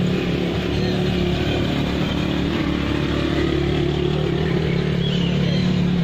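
An engine running steadily at idle, a constant low hum that stays level.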